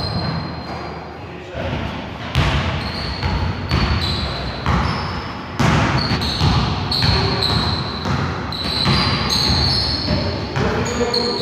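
A basketball bouncing on a gym floor during play, the bounces coming irregularly about a second apart, with short high sneaker squeaks between them.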